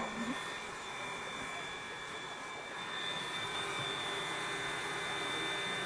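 Steady running noise of a steam train heard from on board, with a few faint high steady tones above it; it grows a little louder about three seconds in.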